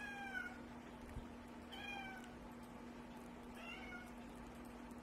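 Domestic cat meowing softly: three short, whining meows that fall in pitch, about two seconds apart, asking to be let out of a closed door. A faint steady hum runs underneath.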